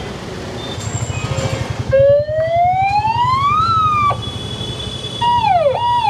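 Aftermarket electronic siren fitted to a Toyota Fortuner, sounded as a test. About two seconds in, one tone climbs steadily in pitch and cuts off about two seconds later. Near the end come two quick sweeps, each dropping and rising again, over a low rhythmic rumble.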